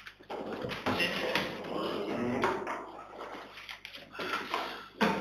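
Indistinct talk in a meeting room, with several sharp taps and knocks; the loudest comes just before the end.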